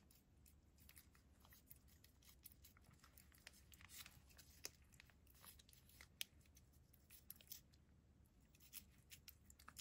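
Near silence broken by faint, irregular small wet clicks of a cat licking a paste treat from a pouch and a small spoon, a few a second, with a couple of slightly louder ones around the middle.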